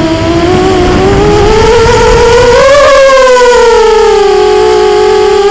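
Racing miniquad's four brushless motors and 5-inch bullnose props whining under throttle changes. The whine starts low, climbs to a higher pitch about three seconds in, then falls back and holds steady.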